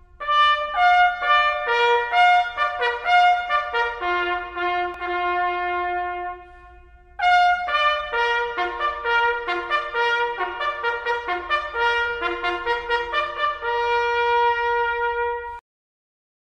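Solo brass melody, trumpet-like, in two slow phrases with a brief lull about six seconds in; it stops abruptly just before the end.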